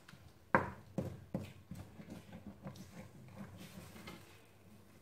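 Wooden spoon stirring a thin mixture in a stainless steel pot, knocking and scraping against the pot's sides and bottom. There is one sharp knock about half a second in, then a run of softer, irregular knocks.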